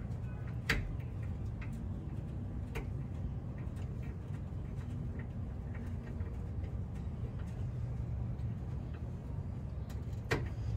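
Light scattered clicks and ticks of a brake line fitting being threaded in by hand, with sharper clicks about a second in, about three seconds in and near the end, over a steady low background rumble.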